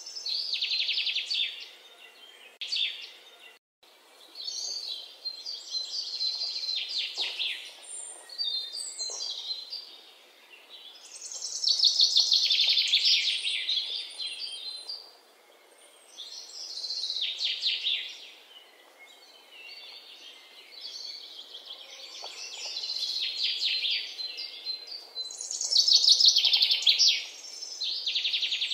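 Birds chirping and trilling in repeated high-pitched bursts of rapid notes, each lasting a second or two, with short quieter gaps between them.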